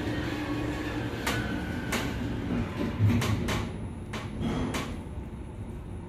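Hyundai WBST 2 passenger elevator car heard from inside: a steady low hum with a string of sharp clicks and one heavy thump about three seconds in, the sound of the sliding car doors and the lift's equipment at work.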